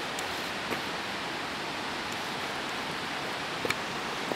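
Steady rushing of nearby river water, an even hiss that does not change. A couple of faint taps sound over it, about a second in and again near the end.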